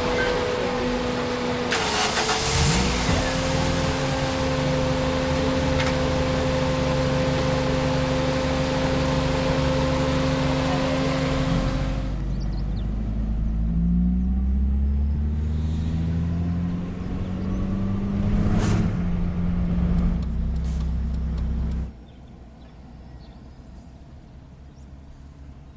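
Car driving: steady road and engine noise with a held whine, then the engine's pitch rising several times as it accelerates. The sound drops much quieter near the end.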